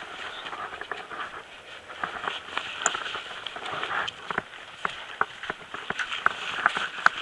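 Footsteps crunching over rough ground, with irregular sharp clicks and rustling.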